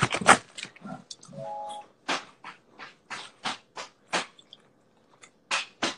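A person chewing pizza with open-mouthed smacks and crunches close to the microphone: irregular wet clicks, several a second, with short pauses.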